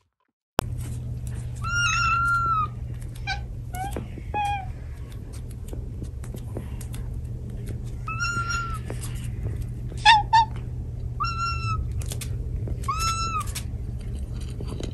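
Cats meowing repeatedly for food: about eight short, high-pitched meows, some in quick pairs, over a steady low hum.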